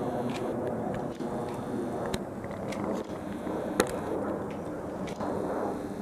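Static hiss and crackle from the horn loudspeakers of a municipal disaster-prevention wireless system, with scattered sharp clicks, the loudest about four seconds in.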